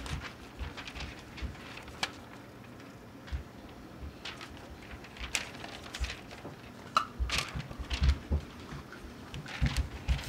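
Sheets of paper rustling and flapping as they are waved close to the microphone, in irregular bursts, with scattered low bumps.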